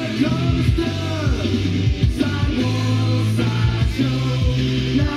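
A rock song with a singer, played back from a vinyl record on a Denon DP-45F turntable with a Shure M97xE cartridge. A steady bass line and drums run under the voice.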